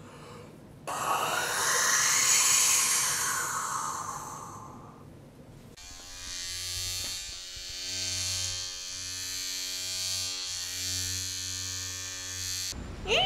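Mouth-made sound effects by a person. First comes a loud breathy hissing whoosh that swells and fades over about four seconds. Then a steady low buzzing drone made with the voice holds for about seven seconds, with a few brief breaks.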